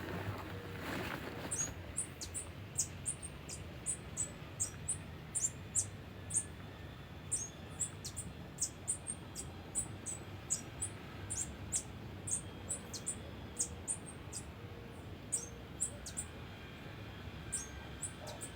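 Short, high-pitched chirps that each slide down in pitch, repeated irregularly two or three times a second. They come from a small animal, most likely a bird. A brief rustle comes before them at the start.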